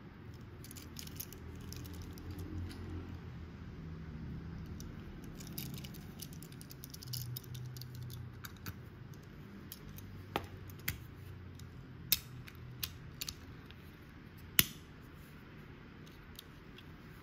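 Die-cast toy cars handled by hand: soft rubbing, then about six small sharp clicks and taps, the loudest a few seconds before the end, as the models' opening doors are pushed shut and the cars are set down on the table.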